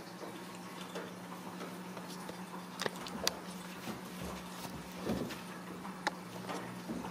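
Ragdoll cats play-wrestling over a fabric banana toy: soft scuffling and rustling as they bite and paw at it, with scattered sharp clicks, the loudest about three seconds in and again about six seconds in. A steady low hum runs underneath.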